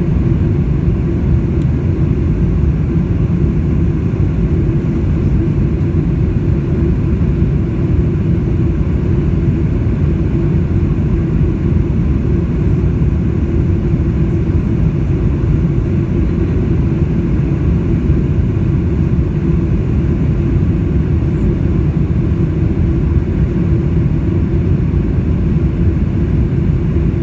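Boeing 747-400 cabin noise: a steady low drone of engines and airflow heard from inside the passenger cabin, with a faint steady hum running through it.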